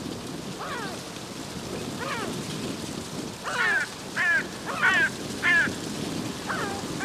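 Yellow-legged gulls calling: about seven short calls, each falling in pitch. A run of four loud ones comes a little past halfway. Under them is a steady rushing background noise.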